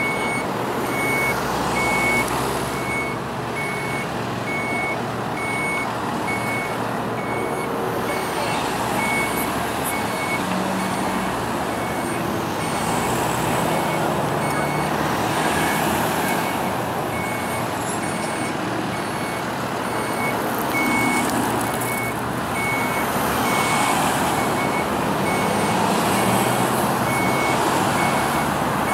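Steady road traffic and an idling fire engine, with a high electronic warning beep repeating evenly about twice a second, like a truck's alarm beeper.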